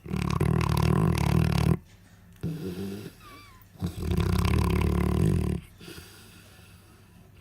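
Central Asian Shepherd Dog (alabai) snoring loudly in deep sleep: two long snores about two seconds apart, with quieter breathing between them.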